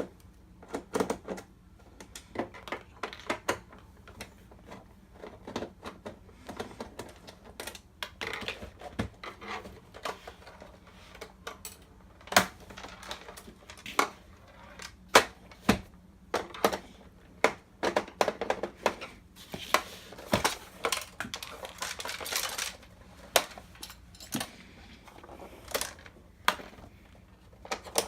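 Irregular clicks, taps and knocks of a screwdriver and hands working on a projector's plastic casing while its screws are taken out, with a few louder knocks near the middle and short stretches of scraping.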